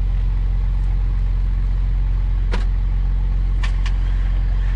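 Off-road 4x4's engine idling steadily close by, with a few short clicks about two and a half and three and a half seconds in.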